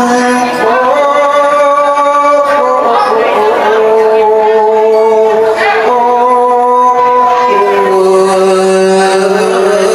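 A Buddhist monk singing a Thai verse through a microphone in long held notes, each lasting a second or more, the pitch stepping up or down between notes. The verse calls the spirits of the dead to come and receive merit.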